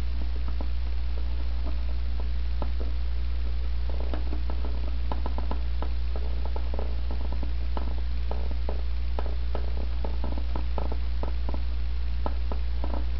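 Fingertips rubbing and pressing a sticker down onto a plastic headlight housing: a run of small clicks and scratches, thickest from about four to eleven seconds in, over a steady low hum.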